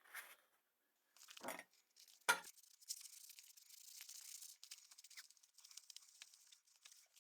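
Two short knocks, then 1500-grit wet sandpaper rubbed back and forth along a steel knife blade: a steady, high, scratchy rasp.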